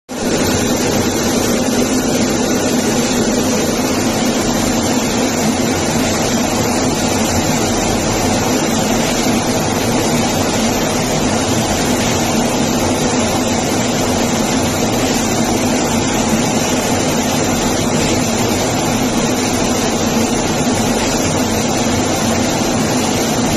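Steady, loud aircraft engine noise with a constant low hum, cutting in abruptly and holding unchanged.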